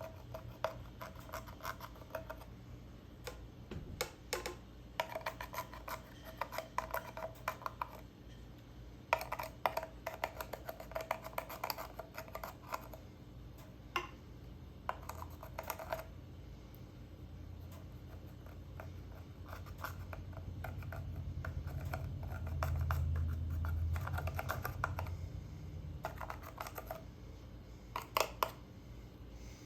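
Glittery slime being squished and poked by hand, giving runs of small sticky clicks and pops in clusters a few seconds long. A low rumble swells in the second half.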